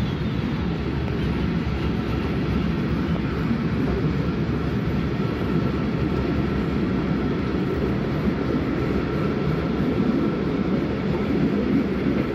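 Vintage Centoporte passenger carriage running along the line: a steady rumble of wheels on rails, with a faint steady whine above it.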